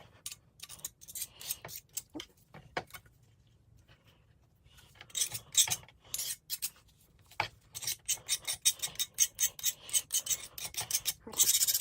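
Softened paint being scraped off a cast-iron vise swivel base after a Simple Green soak, in short rasping strokes. The strokes are scattered at first, then come quickly, about three or four a second, in the second half.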